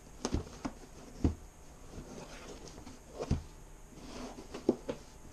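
Handling noise from a DJI Phantom 4 foam carrying case being turned over in the hands: about six short knocks and bumps, with light rubbing and scuffing between them.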